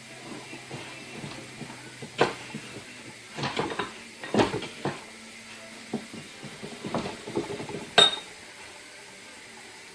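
Freshly greased bench vise being worked by hand to spread the grease through the screw and slide: irregular metal clicks and clunks, ending in one sharp ringing metal clink about eight seconds in.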